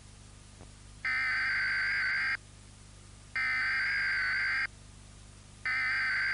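Emergency Alert System header tones: two electronic data bursts, each about a second and a half long with about a second of quiet between them, and a third burst starting near the end.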